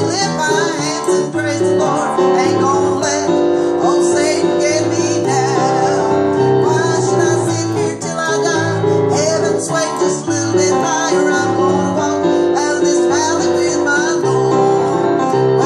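A woman singing while she accompanies herself on a digital piano, playing steady chords under her voice.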